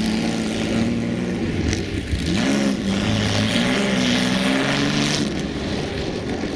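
Jaguar XK straight-six engine running, its pitch swinging up and back down about two seconds in, over a steady hiss from the wet road.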